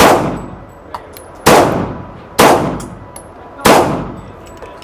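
Grand Power K100 rotating-barrel pistol firing three shots about a second apart, each ringing on in the indoor range. It opens on the fading echo of an earlier shot.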